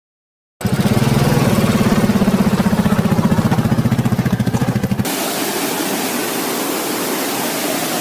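A Royal Enfield Classic's single-cylinder engine running with a fast, even thump, starting abruptly about half a second in. About five seconds in it gives way to a steady rushing noise.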